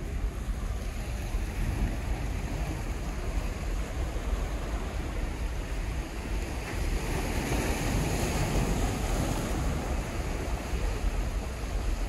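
Sea waves washing and breaking over the rocks of a breakwater, with wind rumbling on the microphone. The surf swells louder about seven seconds in, then eases.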